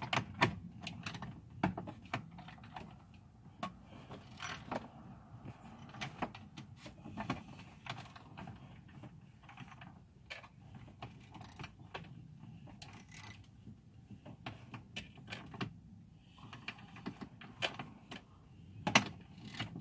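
Scattered clicks, taps and light rattles of tools, screws and plastic dash parts being handled while an aftermarket stereo is mounted in a truck's dash, coming at an irregular pace with no steady rhythm.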